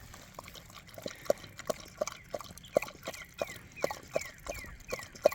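A dog lapping water in quick wet licks, about three a second.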